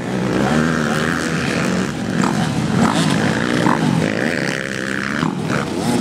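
Several dirt bike engines revving, their pitch rising and falling over and over as the riders throttle on and off through a slow, muddy section.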